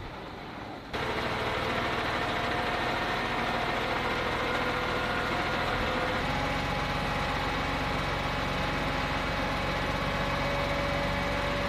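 Aircraft refuelling truck running with its fuel pump engaged: a steady engine hum with a faint whine. It starts abruptly about a second in and changes tone slightly about six seconds in.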